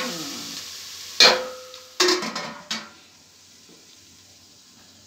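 Onions frying in oil, with a sizzle that fades out over the first second or two. Steel cookware clanks four times over it. The loudest clank, about a second in, rings on briefly.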